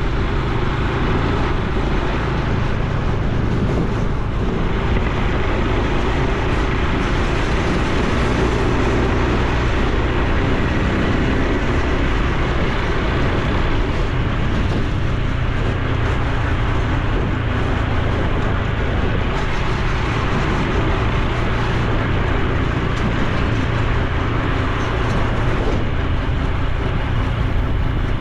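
Honda Super Cub C125's air-cooled single-cylinder four-stroke engine running steadily at road speed, mixed with wind and road noise on the bike-mounted camera.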